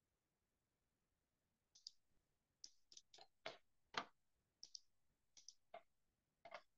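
Faint clicks of a computer mouse, about ten of them at uneven intervals, starting about two seconds in.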